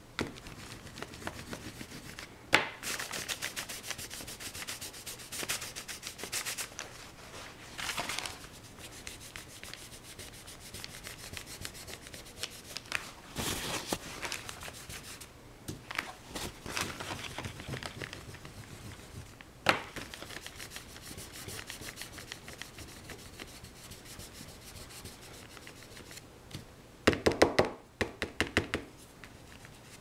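Rubbing, scrubbing strokes of a painting tool worked across the surface of a picture, coming in spells of quick strokes with pauses. Two sharp taps, the first a couple of seconds in and the second about two-thirds through. A louder run of fast, even strokes comes near the end.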